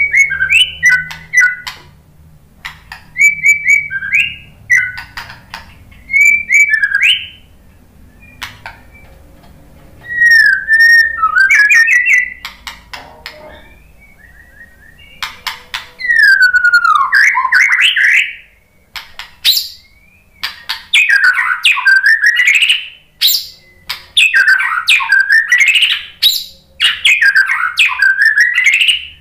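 Male white-rumped shama singing: loud, sweeping whistled phrases mixed with sharp clicking notes, in short bursts with pauses at first and in longer, fuller phrases through the second half.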